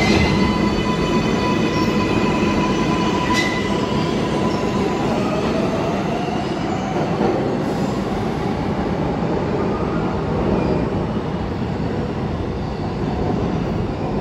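A New York City subway train running through a station with a loud, steady rumble. High steady ringing tones fade out after about five seconds, and there is a sharp click about three and a half seconds in.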